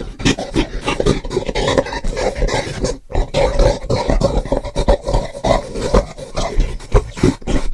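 Homemade monster sound effect: a rough, continuous growling roar, with a short break about three seconds in.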